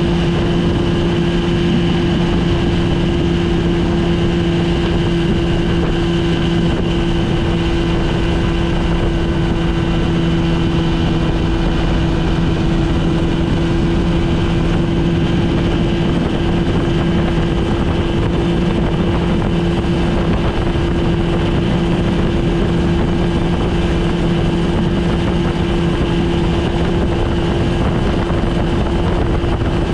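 A 1971 Evinrude Sportster 25 hp outboard, a high-strung two-stroke twin on OMC's 22-cubic-inch powerhead, running at high speed at a steady, unchanging pitch as it pushes a small boat on plane. Wind and spray rush sit under the engine note.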